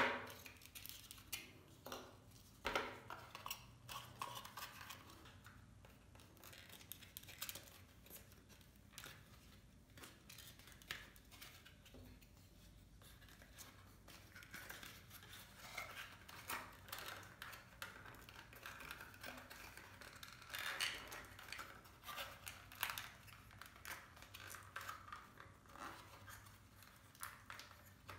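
Foam-board 3D puzzle pieces being handled and fitted together: faint, irregular scraping, rustling and soft clicks as tabs slide into slots and pieces touch the tabletop.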